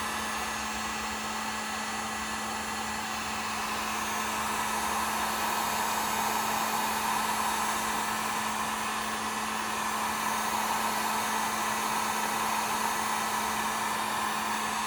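Heat gun running steadily, blowing hot air to shrink heat-shrink tubing tight onto a typewriter platen, with a steady low hum underneath.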